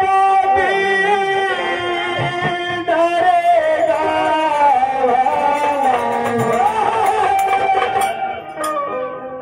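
Live Bhojpuri bhajan: a man singing a devotional melody through a microphone and loudspeakers, over steady held instrumental notes. Near the end the music thins out briefly, with a few sharp percussion strikes.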